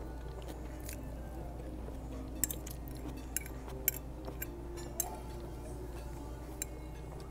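A metal fork clinking and scraping against a plate while eating, with about five sharp clinks between two and seven seconds in, over a steady low room hum.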